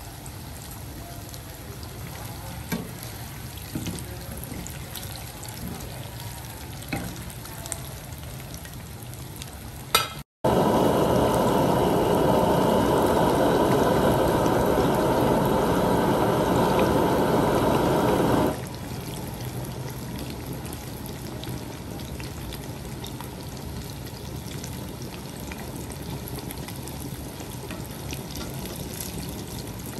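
Fish frying in hot oil: a steady sizzle with scattered small clicks. About ten seconds in there is a brief gap, then a much louder, dense noise for about eight seconds that stops abruptly, and the quieter sizzle goes on.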